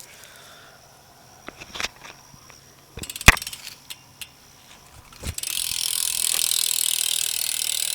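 BMX rear hub freewheeling as the back wheel spins: the pawls click in a fast, steady, loud ratchet buzz that starts about five seconds in. Before it come a few separate knocks and clicks, the loudest a sharp knock about three seconds in.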